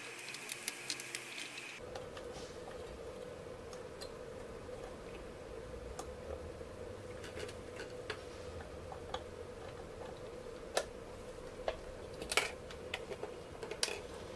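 Small clicks and taps of hands handling a circuit board and plugging in its wire connectors on a workbench, with a few louder clicks near the end. A steady hum sets in about two seconds in.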